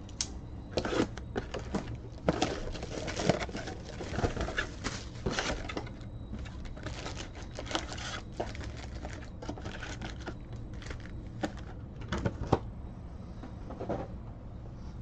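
A cardboard hobby box of baseball card packs being opened by hand, and the foil-wrapped packs pulled out and set down: rustling, crinkling and sharp taps, busiest in the first six seconds, then scattered clicks.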